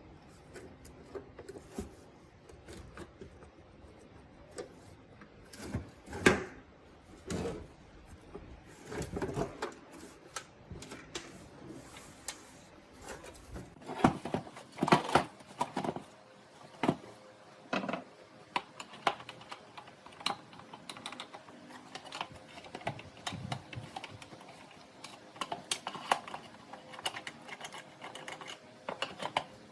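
Irregular clicks and knocks of small plastic and metal parts of an old radio-cassette player being handled and worked on by hand, some in quick clusters.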